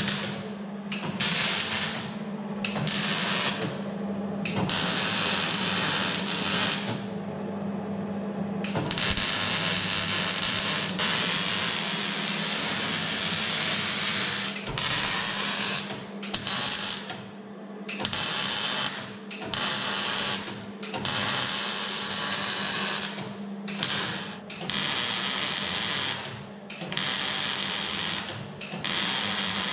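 MIG welder arc crackling and sizzling as stitch welds are laid on the underside of a BMW E36 body, welding in reinforcement plates at the rear axle mounting points. The welds come in bursts: a long run of several seconds about nine seconds in, and many short runs of about a second with brief pauses between, over a steady low hum.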